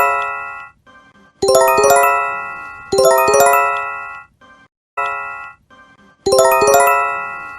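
Japanese J-Alert emergency alert chime: clusters of quickly struck, bell-like tones that ring out and fade, repeating about every one and a half seconds, four times.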